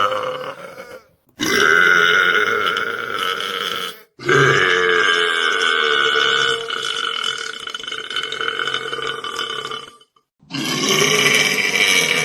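A man belching: a string of long, deep, pitched burps, the longest drawn out for about six seconds. Abrupt silent cuts fall between them, about a second in, at four seconds and near ten seconds.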